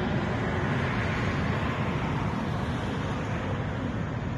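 Jet airliner passing low overhead on approach: a steady deep engine rumble that slowly fades.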